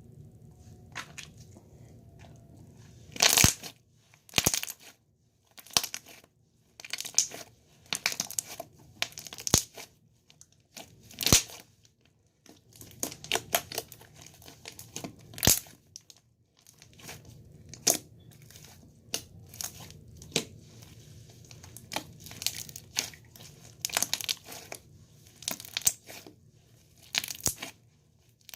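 Slime being squeezed and worked by hand, giving crackling, crinkly bursts about once a second.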